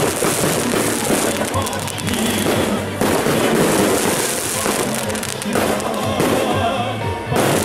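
Aerial fireworks bursting overhead in a dense, continuous run of rapid pops and crackles, with music playing underneath.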